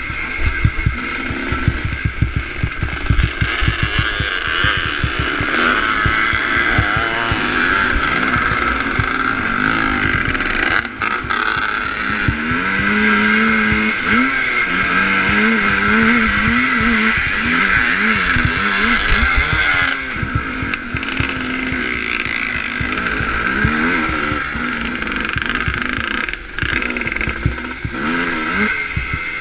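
Onboard sound of a ČZ two-stroke motocross motorcycle racing over a dirt track: the engine revving up and down again and again as the rider works the throttle and gears, with a constant low buffeting rumble on the microphone.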